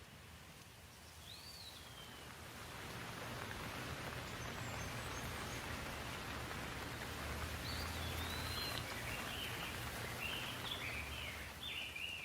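Light rain falling: a steady hiss that swells over the first few seconds, with a low rumble under it. A bird gives one chirp about a second in, then a run of short chirps in the second half.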